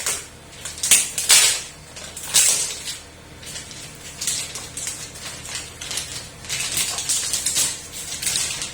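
Handling noises from unpacking: irregular rustles, crinkles and light knocks of plastic packaging and parts being pulled about inside the 3D printer's enclosure.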